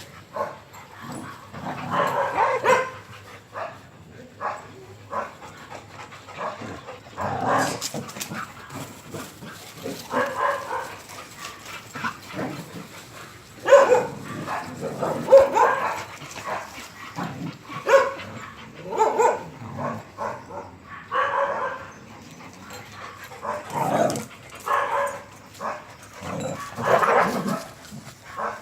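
Dogs barking on and off, in short bursts of a few barks recurring every second or two.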